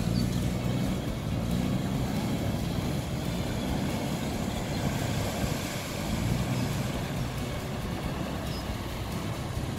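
Diesel engine of a canal express boat running under load, with the churn of its propeller wash. The engine swells near the start and again about six seconds in as the boat manoeuvres.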